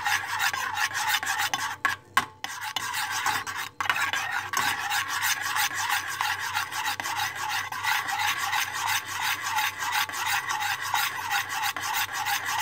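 A utensil scraping round the bottom of a pot in quick, steady strokes as melted butter and grape molasses are stirred over low heat. There is a brief break about two seconds in.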